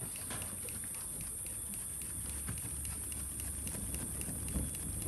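Wood fire crackling in the firebox of a masonry cooking stove as it is fanned with a woven bamboo fan, many small irregular pops over a low rush of air and flame.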